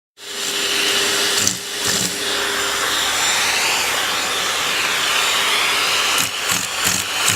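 Vacuum cleaner running with a steady loud hiss whose pitch wavers slightly. About six seconds in, a run of short knocks joins it.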